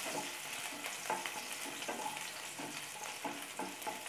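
Chopped garlic and green chillies sizzling in hot oil in a nonstick pan, stirred with a wooden spatula in repeated short scraping strokes.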